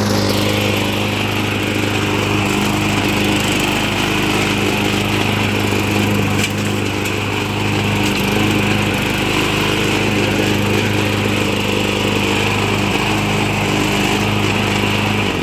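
Toro Recycler self-propelled mower's small engine running steadily at speed while the mower drives forward, then cutting off at the end. It carries a vibration and rattle that the owner suspects comes from a worn, possibly bent blade or a loose metal piece at the front.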